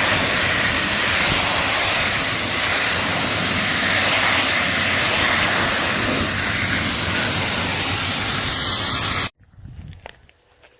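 Pressure washer spraying water, a loud steady hiss that cuts off suddenly near the end.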